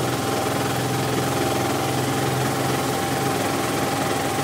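An engine running steadily at an even, unchanging pitch.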